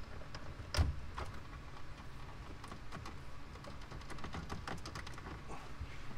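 Hard plastic center-console trim panel of a Porsche Cayman being slid off and handled: scattered light plastic clicks and rattles, with one sharper knock about a second in.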